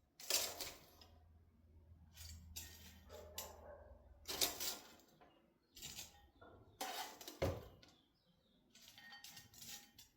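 Crisp air-fried chips and a utensil clattering against a serving dish in about six short bursts while the fries are plated.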